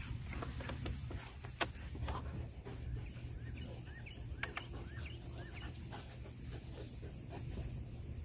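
Faint outdoor background: a low steady rumble with a few light clicks, and a bird calling softly in a run of short rising-and-falling chirps.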